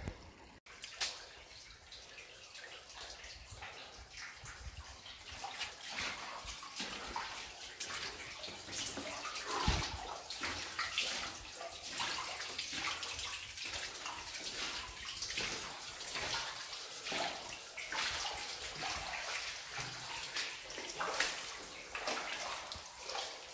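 Footsteps splashing through shallow running water in a flooded mine tunnel, with the stream trickling around them. The sound is fainter for the first few seconds, then turns into steady, uneven splashing.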